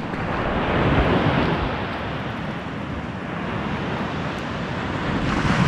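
Surf on a sandy beach with wind on the microphone: a steady rushing that swells about a second in and again near the end.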